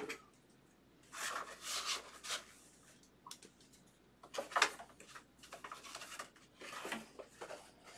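Trading cards and their packaging being handled on a tabletop: a few short bursts of rustling and rubbing, about a second and a half in, in the middle, and near the end.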